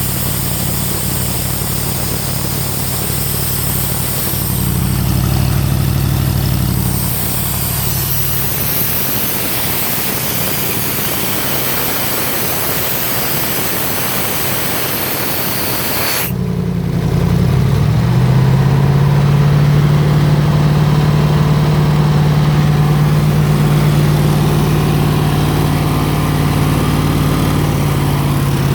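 A 302 air compressor running steadily with an engine-like hum. About 16 seconds in the sound changes abruptly, after which it settles into a louder, steadier low hum.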